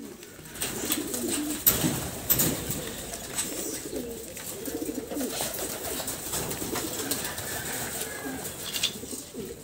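Racing pigeons cooing, a continuous low warbling, with scattered sharp clicks and taps throughout.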